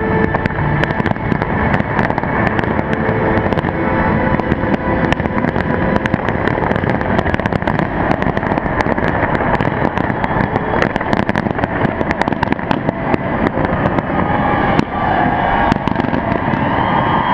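A fireworks display in full barrage: a dense, unbroken run of sharp bangs and crackles packed closely together.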